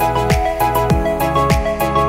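Background music with a steady beat: a deep kick drum about every 0.6 seconds under short melodic notes.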